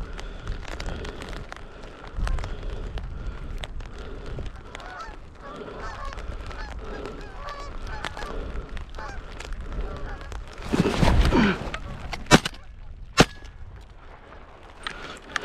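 Canada geese honking over a decoy spread, then a loud call and two shotgun shots less than a second apart near the end. Wind rumbles on the microphone.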